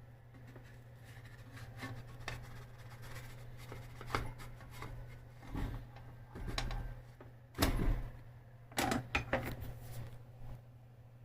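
Kitchen handling sounds: scattered knocks and clatters of cookware and utensils over a steady low hum, with a quick run of sharper knocks in the second half.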